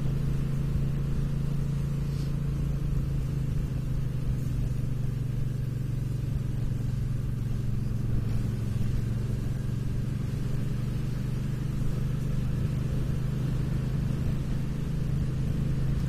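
Cruiser motorcycle engine running steadily at a low, even road speed: a constant low hum that holds the same pitch throughout.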